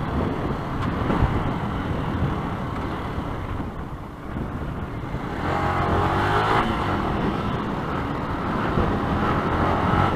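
Yamaha YZF-R125's single-cylinder 125cc engine running under way, mixed with wind rushing over the helmet microphone. About halfway through, the engine note rises as the bike accelerates, then settles to a steady drone.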